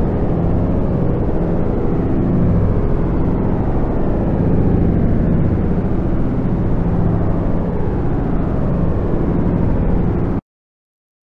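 Dense droning noise of layered rumble and many overlapping gliding tones, steady in level, that cuts off abruptly to dead silence about a second before the end.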